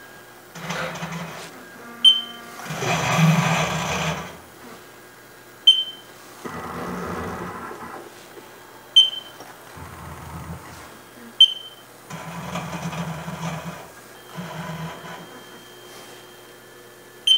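CNC milling machine axes jogging in a series of short moves, each about a second of motor noise, with a short high beep from the controller before most of them. The moves sweep a dial indicator across the rotary-table fixture while the A-axis zero is set.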